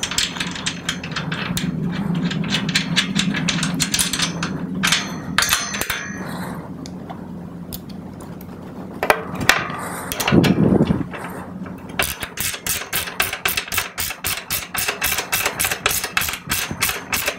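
Steel nut and bolt being fitted through an iron bed's leg lug and side rail: scattered metal clicks and clinks, then, about two-thirds of the way through, a fast, even run of ticks, several a second, as the nut is tightened.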